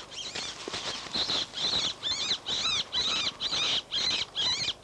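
An animal squealing in a rapid series of high-pitched, piercing calls, about two to three a second, starting about a second in.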